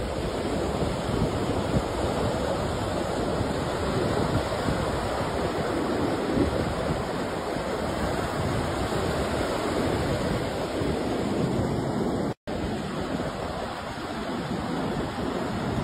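Ocean surf washing and breaking along a beach, with wind buffeting the phone's microphone. The sound cuts out for an instant about twelve seconds in.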